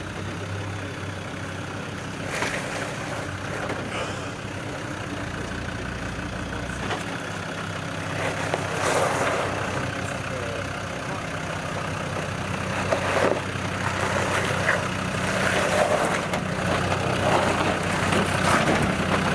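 Land Rover Defender 110 Td5's five-cylinder turbodiesel running steadily at low revs as it crawls over rock ledges, growing louder as it comes closer. A few sharp knocks sound along the way.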